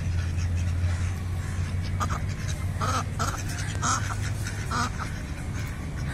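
Domestic ducks quacking, four short quacks about a second apart starting about two seconds in, over a steady low hum.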